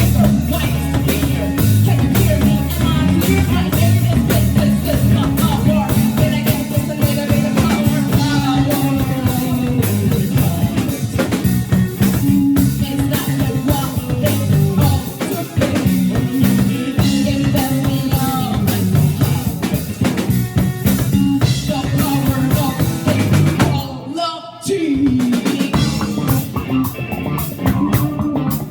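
Live band playing a rock song: drum kit, bass and guitar, with singing. The music drops out briefly near the end, then comes back in.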